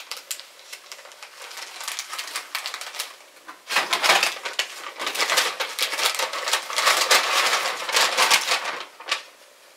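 Brown paper bag crinkling and rustling as it is handled. It is faint at first, then louder and denser from about four seconds in until near the end.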